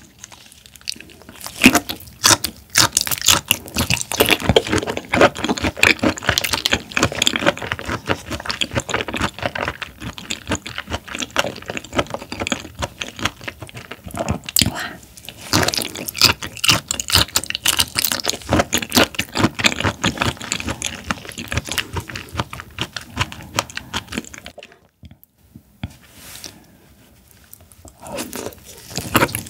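Close-miked chewing of raw shrimp: a dense run of wet, clicky mouth sounds from about two seconds in, dropping away a few seconds before the end, then starting again with a fresh bite.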